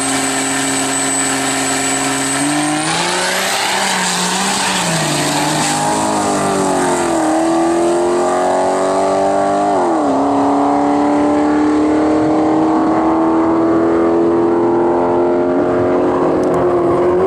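Turbocharged 5.9 L Cummins diesel of a 1200 hp drag pickup, held at steady revs on the starting line with a high turbo whistle, then launching about three seconds in. Engine pitch and whistle climb, dropping sharply at gear changes around seven and ten seconds in, then climbing again.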